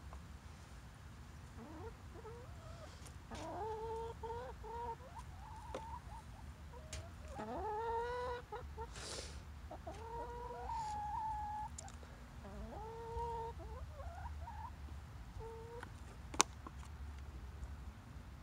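Domestic hens clucking, with short bouts of drawn-out calls coming and going. About sixteen seconds in, a single sharp click.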